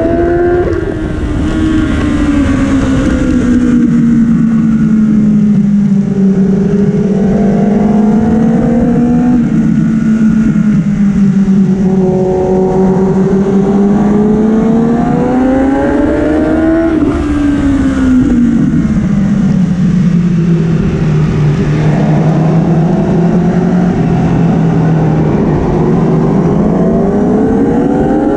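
2013 Kawasaki superbike's inline-four engine at racing speed, heard onboard: the engine note climbs and falls several times as the rider accelerates and brakes through the corners, with a sharp drop in revs about two-thirds of the way through.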